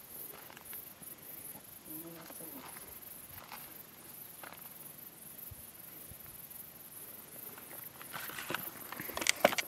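Footsteps and rustling through grass and brush, growing louder and busier near the end, over a steady high chorus of insects.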